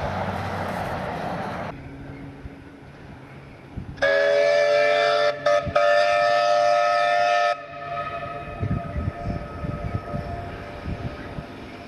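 Steam locomotive whistle blown for about three and a half seconds, several pitches sounding together like a chord, with two very short breaks just after it starts.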